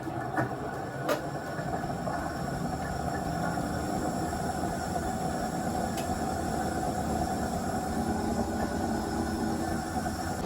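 Panasonic drum-type washer-dryer running with a loud, construction-like noise, having just spun up: an abnormal noise of a fault that ends in an H59 error stop. The noise is a steady mechanical din with a couple of knocks near the start.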